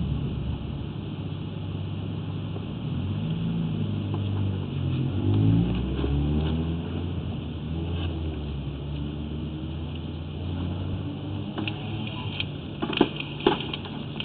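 A motor engine running with a steady low hum, its pitch rising and falling about a third of the way through, and a few sharp knocks near the end.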